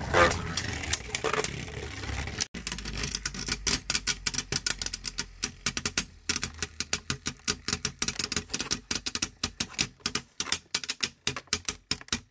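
Two Beyblade Burst tops, the LED Fornious and Cobra, spinning against each other in a plastic stadium and striking in a rapid, uneven run of clicks that come faster and closer together as the battle goes on.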